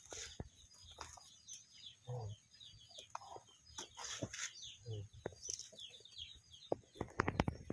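Chickens clucking now and then while small birds chirp quickly and steadily in the background, with a few sharp knocks near the end.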